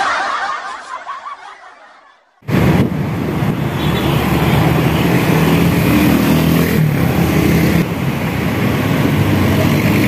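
A hiss fades out over the first two seconds, then after a short break, close city traffic: motorcycle and car engines running and passing, with a steady engine hum and road noise.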